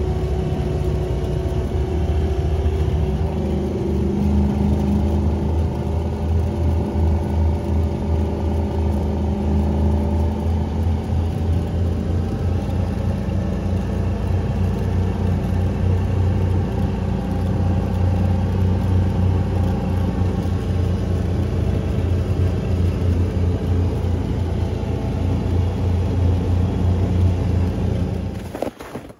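Side-by-side UTV engine running at a steady pace while driving, heard from inside the open cab as a low, even drone.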